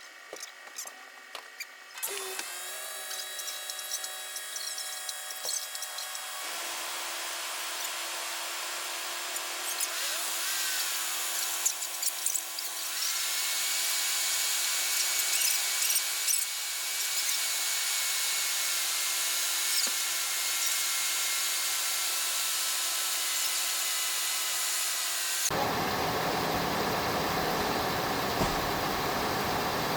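Steady whine of a power tool or small electric motor during truck repair work. Near the end, a low engine rumble starts abruptly.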